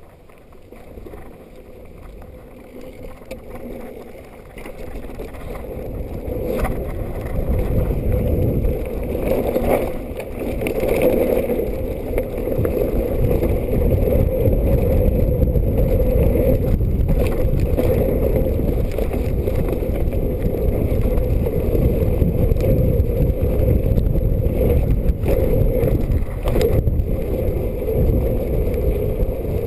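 Mountain bike descending a rough dirt singletrack, heard from a GoPro on the rider: a steady rush of wind on the microphone and rumble of the tyres on the trail, growing louder over the first several seconds as speed builds. A few sharp knocks and rattles come from the bike over bumps.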